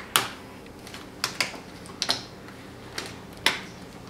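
Plastic screen bezel of an HP Envy dv6 laptop being pried off by hand, its retaining clips popping loose in a string of sharp, irregularly spaced snaps.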